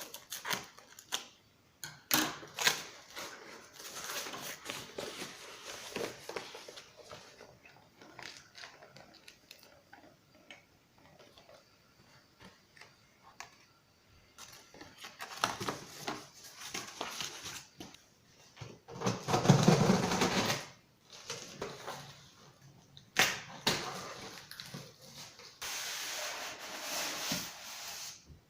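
Irregular handling noises: clicks, taps and rustling of objects being moved about, with a louder stretch of rustling and thuds about two-thirds of the way in.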